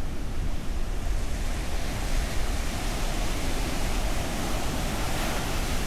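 Ocean surf on a beach: a steady hiss of breaking waves over a low rumble, swelling about five seconds in as a wave washes up.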